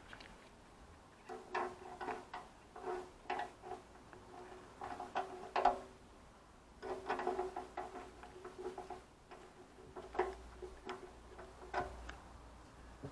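Irregular light metal clicks and taps from a motorcycle fuel tap and its mounting bolts being fitted by hand onto the metal fuel tank. They come in two runs, with a short pause about halfway.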